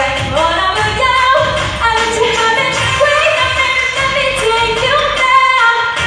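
A woman singing a pop song live with band accompaniment over a steady drum beat.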